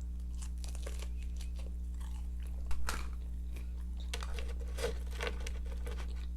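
Close-up chewing of a mouthful of food, with irregular crunchy bites; the crispest and loudest comes about three seconds in. A steady low hum runs underneath.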